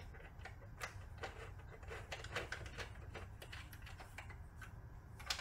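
Faint, irregular small clicks and ticks, several a second, of an Allen hex key turning the fasteners on a plastic engine cover.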